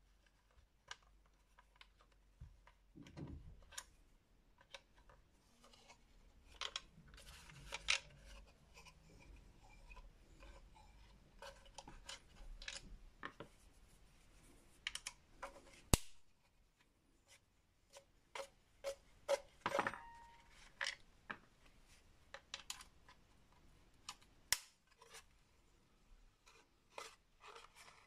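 Small screwdriver working on the plastic case of a Parkside 20 V tool battery pack: scattered clicks, taps and short scrapes of metal on plastic as screws are taken out and the case is handled, with one sharp click about halfway through.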